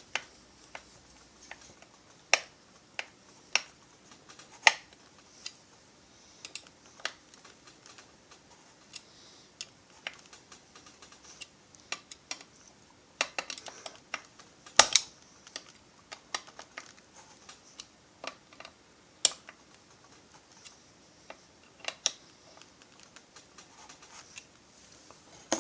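Scattered, irregular light clicks and taps of small parts and tools being handled during chainsaw engine assembly, the sharpest just past halfway.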